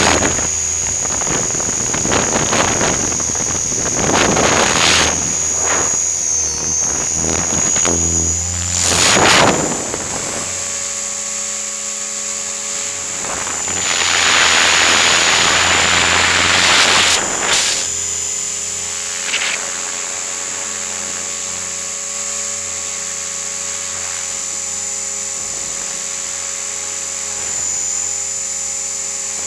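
Align T-REX 500 electric RC helicopter running, heard from a camera on its nose: a steady high whine from the motor and gears over the hum of the rotor. Loud rushes of air noise come and go in the first ten seconds and again about fifteen seconds in.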